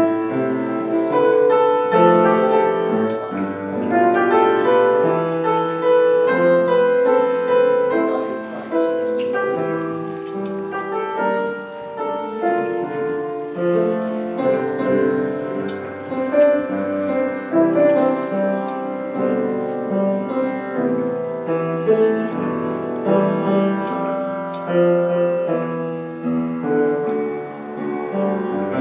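Solo piano playing a flowing instrumental piece, with many notes moving steadily and no singing.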